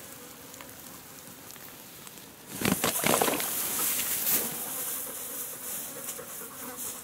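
Flies and other insects buzzing, with a loud burst of rustling and clicking handling noise about two and a half seconds in that fades out over the next two seconds.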